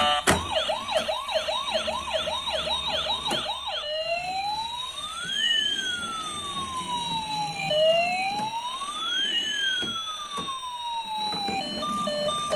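Toy emergency vehicle's electronic siren: a fast yelp cycling about three times a second for the first few seconds, then switching to a slow wail that rises and falls twice. Near the end a short beeping electronic tune starts.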